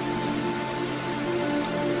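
Steady rain falling, with soft music of long held notes underneath.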